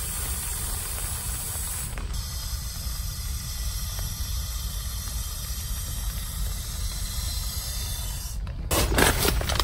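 Breath blown by mouth into the valve of an inflatable sleeping pad: a long steady rush of air, broken by a short pause for breath about two seconds in. Near the end, other, louder sounds begin.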